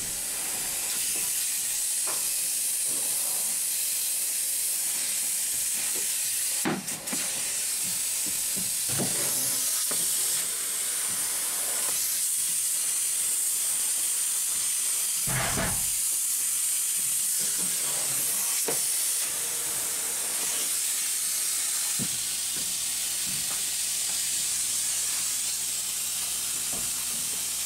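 Spray foam gun spraying polyurethane foam insulation, a steady high hiss. It breaks off briefly about seven seconds in, and a dull thump comes about halfway through.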